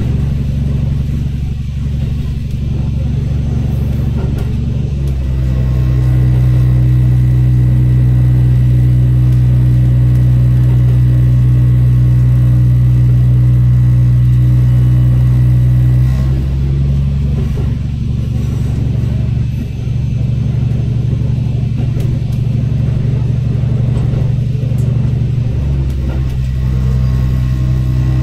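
Diesel engine of a JR Meisho Line KiHa 11 railcar running with a steady low drone. About five seconds in it grows louder as it works harder under power, then drops back about ten seconds later and picks up slightly again near the end.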